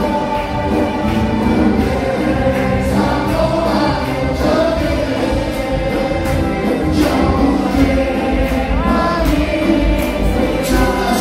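Church congregation singing a worship song together over amplified music, with hands clapping in a steady beat.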